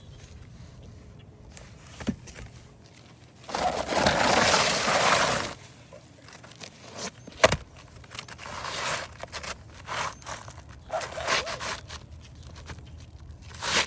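Scraping and rubbing: one long scrape of about two seconds, a sharp knock a couple of seconds later, then several shorter scrapes.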